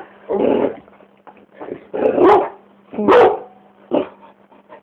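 Dog barking in short, rough woofs, four times about a second apart.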